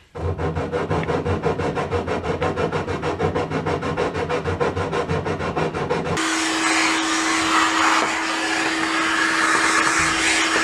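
Rapid, even rubbing strokes of wood being shaped by hand, about five a second. About six seconds in they stop and a vacuum cleaner starts, running steadily with a constant hum, picking up the dust.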